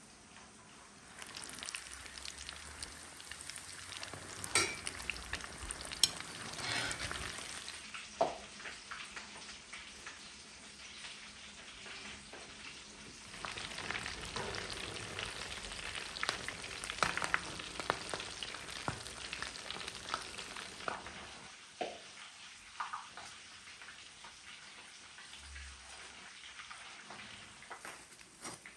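Breaded chicken drumsticks deep-frying in a wok of hot oil: a dense crackling sizzle, with occasional sharp knocks of a metal slotted skimmer stirring them. The sizzle falls quieter over the last several seconds.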